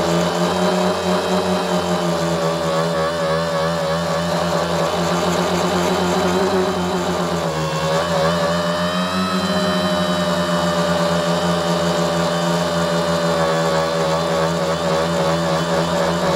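Tricopter's three motors and propellers running, heard close up through its onboard camera, the pitch wavering as the throttle is worked. About seven and a half seconds in the pitch drops briefly, then climbs back up.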